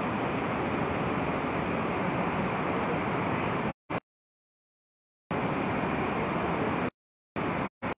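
Fast-flowing floodwater rushing in a steady, even noise, broken by abrupt dropouts to dead silence: one about a second and a half long near the middle, and two short ones near the end.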